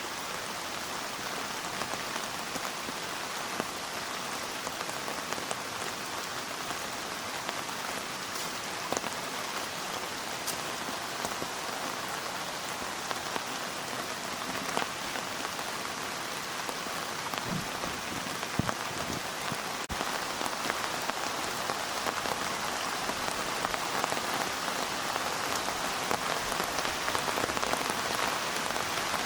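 Heavy rain falling steadily, an even hiss of drops with a few scattered sharper drop hits, growing a little louder about two-thirds of the way through.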